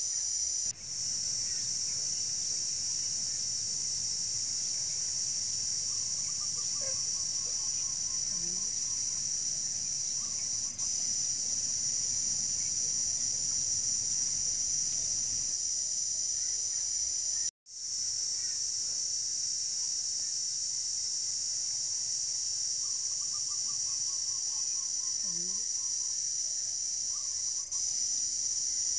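Steady, shrill insect chorus that drops out for an instant a few times. A faint falling, stuttering call comes twice, once near a quarter of the way through and once past three quarters.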